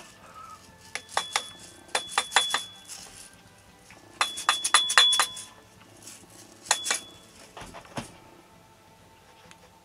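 Metallic clinking and rattling in four short bursts, then a dull knock near the end, as the plastic propeller is worked off the propeller shaft of a 1 hp four-stroke outboard motor.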